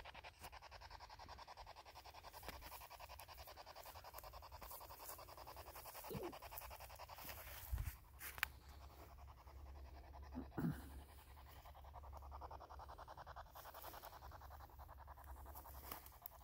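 Near silence: a faint steady hiss with a fine, fast pulsing, and a few faint short sounds around the middle.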